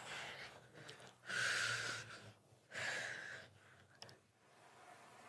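A girl breathing deeply into a close microphone: two long, noisy breaths about a second apart, taken to calm her nerves before singing.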